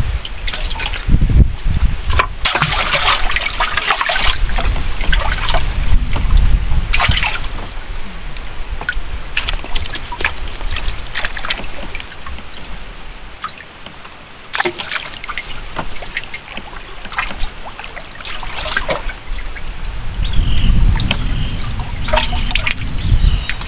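Water sloshing and trickling with scattered small splashes, over a low rumble at the start and again near the end.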